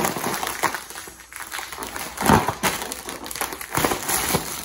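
Foil helium balloon crinkling and rustling in irregular crackles as it is squeezed in someone's arms while helium is drawn from its neck.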